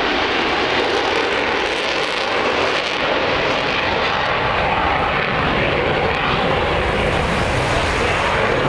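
Fighter jet flying past: a loud, steady jet roar whose sound deepens in the second half as it moves away.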